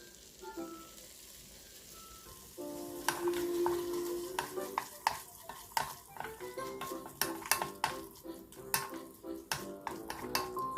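Pork and potato strips stir-frying in a pan: a sizzle starts about two and a half seconds in, with frequent sharp clacks of the spatula against the pan, over soft background music.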